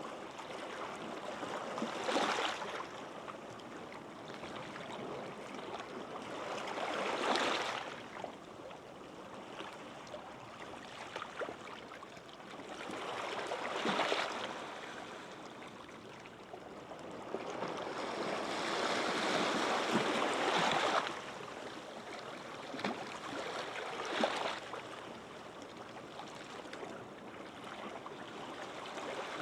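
Small waves breaking gently on a sandy beach, five washes of surf rising and falling, the longest about two-thirds of the way through.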